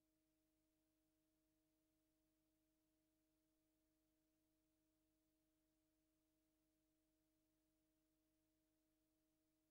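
Near silence: only a very faint, steady hum of a few unchanging tones under a faint hiss.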